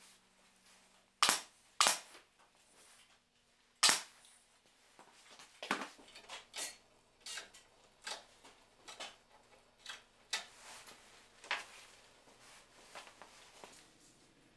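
Senco pneumatic gimp stapler firing three sharp shots within the first four seconds, driving staples through jute webbing into the wooden bows of a carriage top. A run of fainter clicks and taps follows as the webbing is handled.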